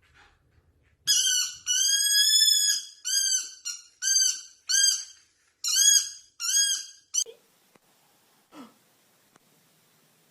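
An animal giving a run of about eight high-pitched, arching squealing calls, the second one long and the rest short and quick. A couple of faint clicks follow near the end.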